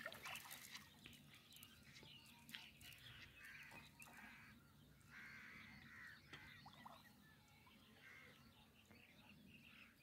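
Near silence: faint outdoor quiet with scattered distant bird calls and the odd small water sound.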